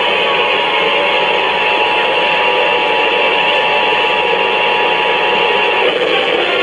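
Uniden BC370CRS scanner radio's speaker putting out a loud, even hiss with a faint steady tone in it; the tone stops near the end.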